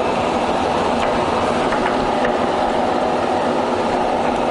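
Harrison M400 centre lathe running, a steady mechanical hum and gear noise from the headstock, with a few light clicks as the speed controls are worked.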